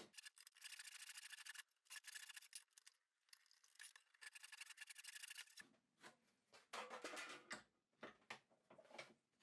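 Faint rasp of a handsaw rip-cutting softwood along its length in several runs of strokes, finishing a resaw cut. A little past halfway the sawing stops and gives way to a few light knocks and handling of the wood and saw.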